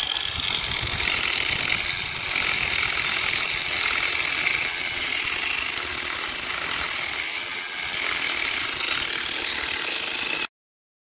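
Cordless angle grinder with a cutting disc cutting into a clay drain pipe: a steady, high-pitched grinding that cuts off suddenly near the end.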